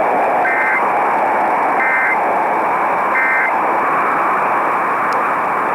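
Three short Emergency Alert System SAME data bursts, the two-tone digital 'burps', a little over a second apart over a steady hiss of radio static. Their shortness fits the end-of-message code that closes an alert.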